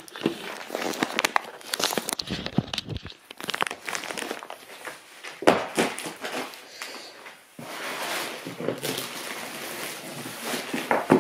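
Plastic mailing bags crinkling and rustling as parcels are picked up and carried, with scattered knocks from the handling, the sharpest about five and a half seconds in.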